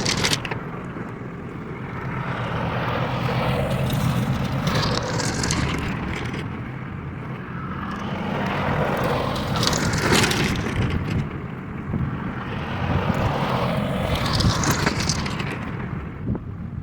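Tractor diesel engine running steadily while working, with swells of rougher noise about every five seconds as it works the ground.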